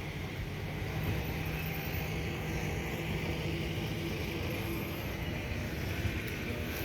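Road traffic: a steady low vehicle hum with road noise, the hum holding steady for most of the stretch.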